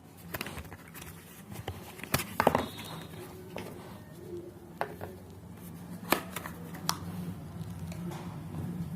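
Hands handling an earbud charging case and small packaged accessories: scattered sharp clicks and taps, the loudest cluster about two seconds in. A low steady hum underneath grows louder near the end.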